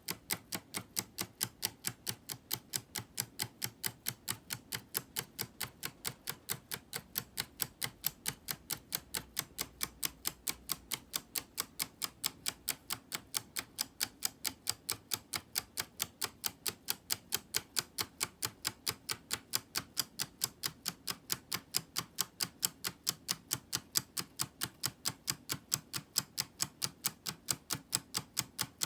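3D-printed PLA tourbillon escapement model ticking steadily as its escapement releases, sharp clicks at about four a second.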